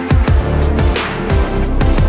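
Electronic background music with deep bass and a steady, punchy drum beat.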